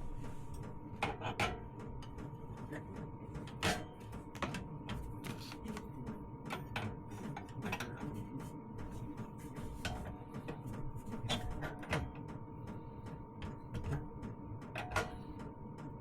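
Scattered clicks and light knocks of hand work as a fuel-line fitting is secured, over a steady faint hum.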